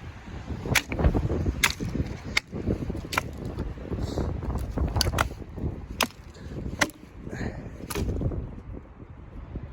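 A series of sharp cracks or snaps, roughly one a second, over a low rumbling noise.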